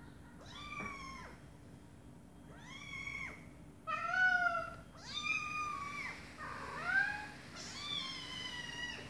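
A mother cat and her kitten meowing back and forth: about six meows in a row, each about a second long, differing in pitch.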